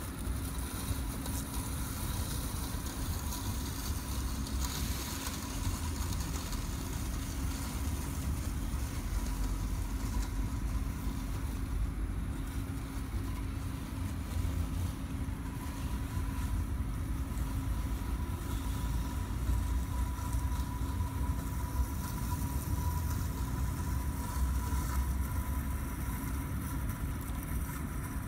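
eM1000 robotic lawn mower running as it drives across grass: a steady low rumble with a steady hum.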